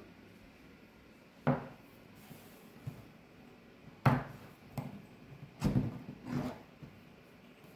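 A handful of light knocks and taps, about five spread over several seconds, the loudest about four seconds in: kitchen items or cookies being handled and set down on a work surface.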